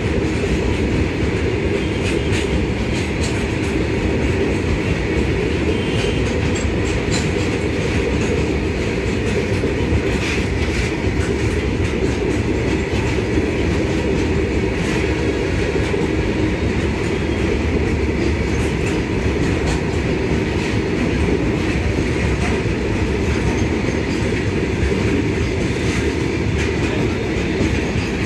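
BCNA covered goods wagons of an Indian Railways freight train rolling past close by: a steady rumble of steel wheels on the rails, with scattered sharp clicks and clanks from the wheels and running gear.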